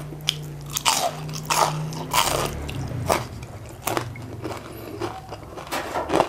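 Close-up biting and chewing of crispy battered fried chicken, a run of irregular crisp crunches, with a low hum underneath at times.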